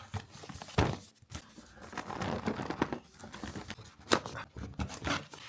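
Packaging rustling and crinkling as a product box is unpacked by hand, with a few sharp knocks, the loudest about four seconds in.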